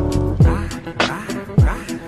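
Music with a beat: deep bass drum hits that fall sharply in pitch, under held pitched tones.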